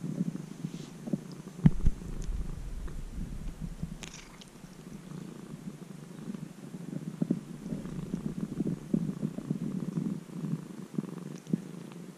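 A ginger-and-white domestic cat purring steadily, with a single brief thump a little under two seconds in.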